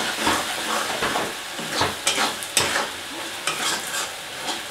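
Sliced onions and ground spices frying in oil in a metal kadai, with a steady sizzle, while a metal spatula stirs and scrapes against the pan in irregular strokes.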